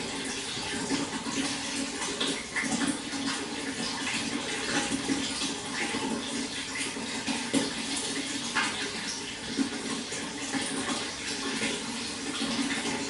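Running water, a steady rush with small splashes scattered through it.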